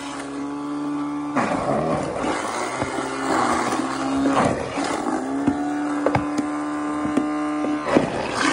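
A half-horsepower garbage disposal running as an apple crusher, grinding apple quarters into mush with a steady droning hum. The hum dips in pitch about three seconds in and picks back up a couple of seconds later, and sharp knocks from the apple pieces hitting the blades break in several times.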